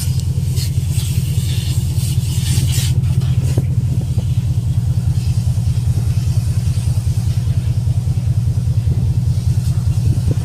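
Ship's machinery running: a loud, steady low drone with a fast, even pulse. A faint hiss from a fire hose washing down the deck sits above it.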